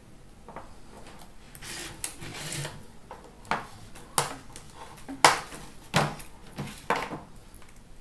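Stiff slot-insulation paper for a ceiling fan stator being handled and creased by hand: a rustle, then a string of sharp crisp snaps, the loudest just past the middle.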